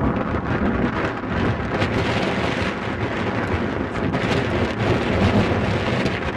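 Thunderstorm noise: wind buffeting the microphone with rain, a steady low rumbling rush.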